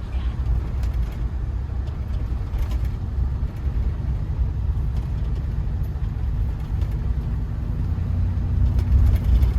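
Steady low rumble of a car on the move, heard from inside the cabin, with a faint engine drone rising a little near the end.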